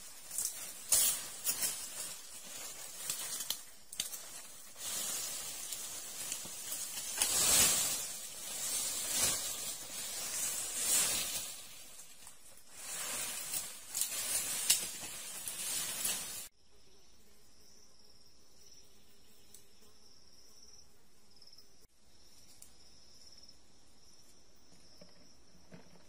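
Irregular rustling, crackling and sharp knocks for most of the first two thirds. After a sudden cut, a steady high-pitched chirring of insects takes over.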